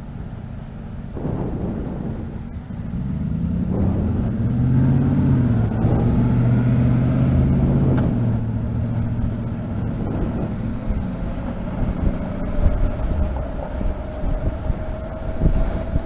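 Honda NC700X's parallel-twin engine pulling away, rising in pitch about three seconds in, dropping back as it shifts, then running steadily at a moderate road speed. Wind rumbles over the helmet microphone throughout.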